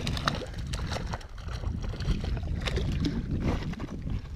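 Hooked golden trout splashing and thrashing in the shallows at the line's end, a scatter of small sharp splashes and taps, over a steady low rumble of wind on the microphone.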